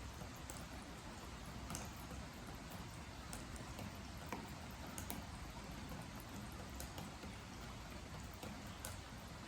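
Rain falling steadily, with water drops tapping irregularly onto a wooden deck: scattered sharp ticks over an even hiss.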